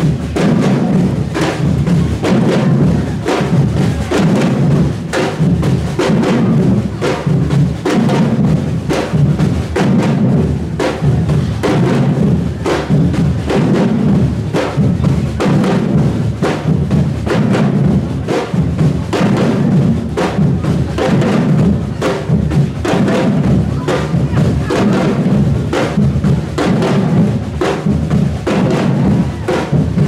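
A street drumming band playing a steady, driving rhythm on large surdo-style bass drums struck with sticks, the deep drum beats dominant.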